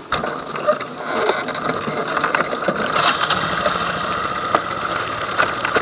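ATV engine running steadily at idle, with scattered clicks and knocks.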